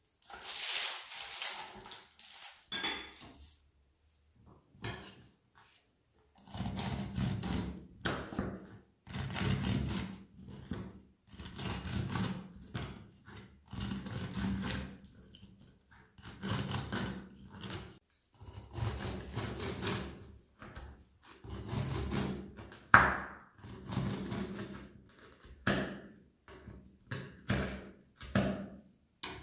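A long knife cutting through baked lemon cantucci logs on a wooden cutting board: repeated crunching cutting strokes, about one every two seconds. There is one sharp knock about two-thirds of the way through.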